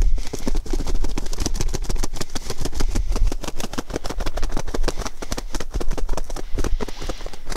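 A hen's wings flapping hard in rapid beats: the reflex thrashing of a chicken whose neck has just been broken.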